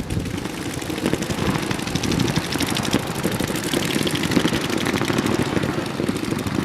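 Many paintball markers firing rapidly at once during a game: a dense, continuous run of pops.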